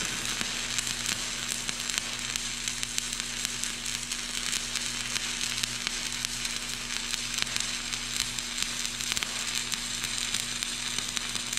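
Stick welding with a 1/8-inch 7018 electrode: the arc crackles and sizzles steadily as a bead is run, with a steady low electrical hum underneath.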